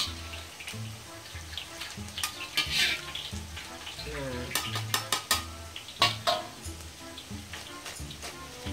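Metal spatula scraping and clinking against a wok and a wire spider strainer while fried chicken pieces are lifted out of hot oil, which keeps sizzling. The loudest clinks come in clusters about 2, 5 and 6 seconds in.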